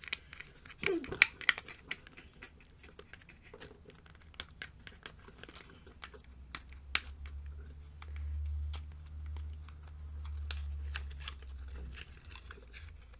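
Sealed plastic cosmetics packaging being snipped and crinkled open by hand: many sharp clicks and snips, thickest in the first few seconds. A low rumble runs from about eight seconds in to near the end.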